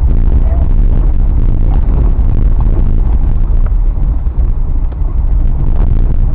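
A car driving over a bumpy dirt track: a loud, steady low rumble of engine and road noise, with scattered knocks and rattles from the jolting.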